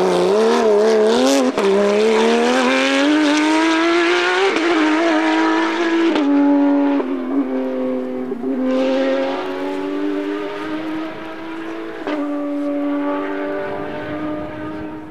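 Rally car engine at full throttle, climbing in pitch and shifting up twice in the first few seconds, then holding a steady note as the car pulls away and fades.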